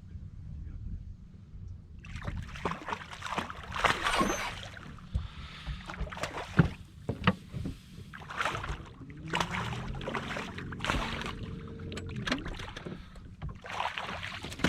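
Boat motor running steadily, with irregular bursts of splashing and knocks. Around the middle its pitch rises and falls for a couple of seconds.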